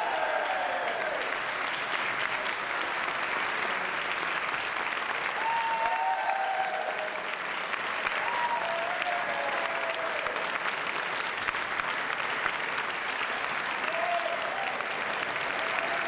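Sustained applause from a large crowd of choir and audience, many hands clapping at once, with a few voices calling out over it now and then.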